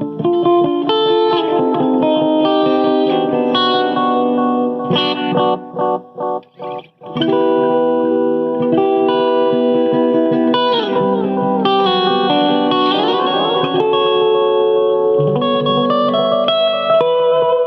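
Electric guitar played through a stereo tape-style delay pedal into two amps, a Vox and a Peavey, the repeats bouncing between a faster right channel and a slower left one. About five seconds in come a few short choppy stabs with gaps between them, then held chords and sliding notes with the echoes overlapping.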